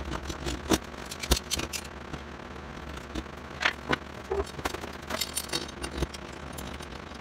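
Thin wooden tray sides and metal corner clamps being set down and adjusted on a wooden workbench: a series of sharp knocks and clicks, the loudest a little over a second in, over a steady low hum.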